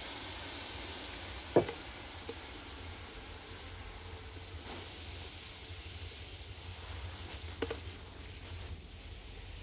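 Water sizzling and hissing on the hot metal of a newly made stove, poured on to lift off rust and dirt; the hiss eases slowly. A sharp click about a second and a half in, and another near the end.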